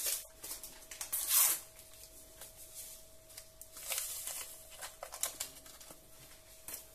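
A small paper sachet of vanilla sugar is handled and torn open by hand. There is a sharp rustle about a second in and short crinkles around four to five seconds in.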